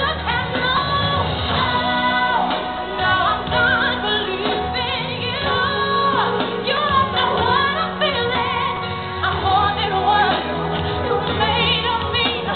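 A song playing: a voice singing, wavering in pitch, over steady instrumental accompaniment.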